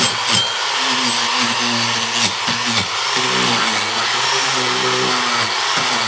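Handheld electric power tool cutting into wood, its high motor whine sagging and recovering several times as it bites.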